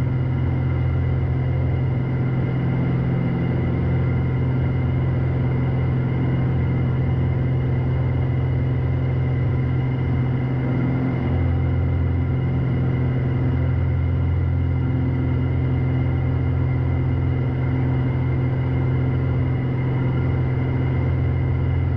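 Piper PA-46 Malibu's engine and propeller droning steadily in the cockpit at climb power.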